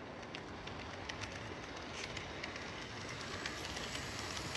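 HO scale model freight train of steel coil cars rolling along the layout track: a steady running rumble of small wheels on the rails, with scattered light clicks, growing a little louder toward the end.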